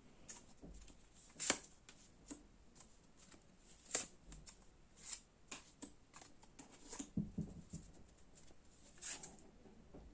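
Tarot cards being handled and laid out: a scattering of soft, irregular snaps and taps of card stock, with loudest snaps about a second and a half in and again about four seconds in.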